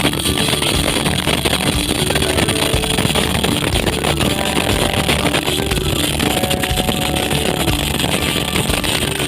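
Background rock music with held notes that change every second or so.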